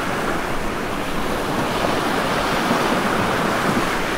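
A steady rushing noise, like surf or wind.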